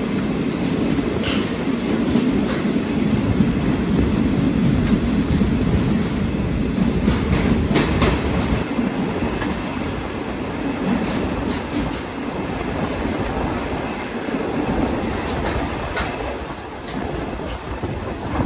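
Indian Railways ICF passenger coach running at speed through a tunnel: a heavy, echoing rumble of wheels on rail with scattered sharp clacks, easing a little past the middle.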